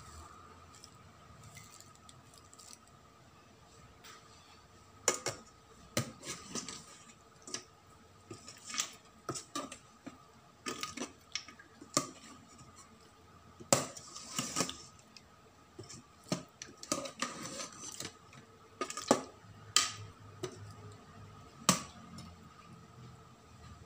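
Metal spoon scraping and clinking against a rice cooker's metal inner pot while stirring chicken pieces in curry sauce. The irregular clinks and scrapes start about five seconds in.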